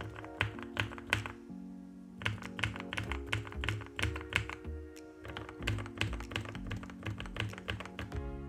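Typing on a Sharkoon Skiller SGK50 S4 mechanical keyboard with lubed Kailh Brown tactile switches: runs of rapid keystrokes broken by short pauses, over chill-out background music.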